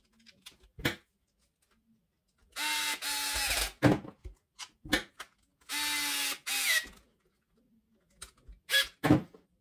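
Small cordless electric screwdriver driving screws in two steady motor runs of about a second each, with scattered short clicks between them.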